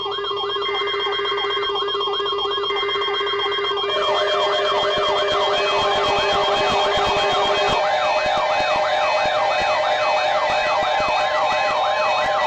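Emergency Alert System attention tones from a broadcast weather alert: steady alert tones layered with a repeating siren-like rising-and-falling warble. A second alert layer with faster sweeps joins about four seconds in, and one of the steady tones stops about eight seconds in.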